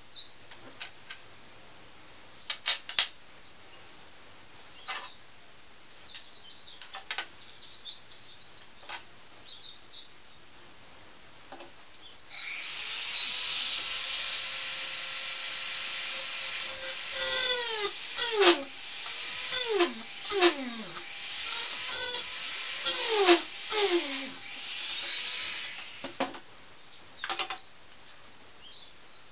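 Handheld rotary tool drilling a small model part: a high whine that starts about twelve seconds in, its pitch dipping and recovering again and again as the bit bites and the motor is loaded. It stops shortly before the end, with small clicks of tools and parts being handled before and after.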